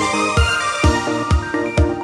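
Electronic dance music with a steady four-on-the-floor kick drum, about two beats a second, under synth chords that change near the middle.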